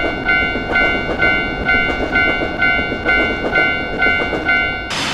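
Japanese railroad crossing warning bell ringing its repeated 'kan-kan' ding, about two strikes a second. Near the end it cuts off suddenly and a loud, steady rushing noise takes over.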